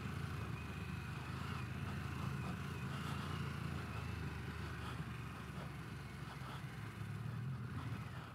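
Harley-Davidson Pan America's 1250 V-twin running steadily and faintly as the motorcycle rides along a dirt trail, with no rise or fall in pitch.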